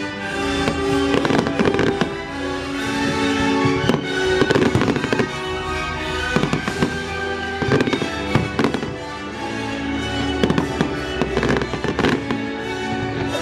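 Fireworks bursting and banging again and again over orchestral music that plays throughout.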